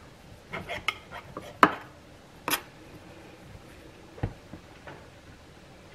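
A kitchen knife clicking and clinking against the rim of a glass pie dish while trimming excess pie crust: scattered sharp clicks over the first two and a half seconds, the loudest about a second and a half in, then a dull thump about four seconds in.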